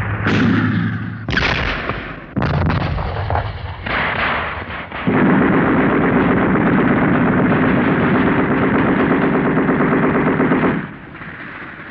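Battle gunfire: a few heavy shots or blasts in the first seconds, then a long burst of rapid machine-gun fire lasting about six seconds that cuts off suddenly near the end.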